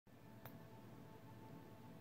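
Near silence: quiet room tone with a faint steady hum and one faint click about half a second in.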